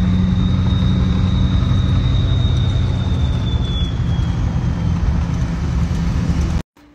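Steady engine and road noise heard from inside the cab of a moving pickup truck, with a thin high whine that drifts slightly lower and fades out about four seconds in. The sound cuts off abruptly near the end.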